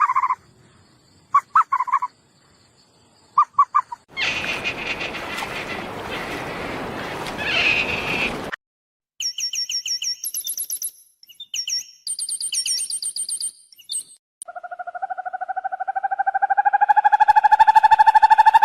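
A run of different animal calls, one after another. First come short chirps, then a stretch of harsh, noisy sound. Next are rapid, high bird-like trills, and near the end a long call that rises slightly in pitch and grows louder.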